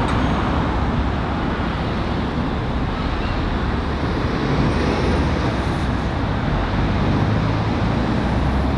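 Steady road traffic: lorry and car engines running and tyre noise as vehicles pass on the roundabout, with a continuous low engine drone.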